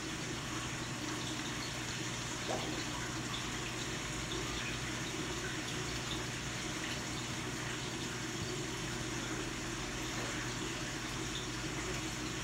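Steady rush of water circulating in a large aquarium, the filtration stirring the surface, over a low steady hum.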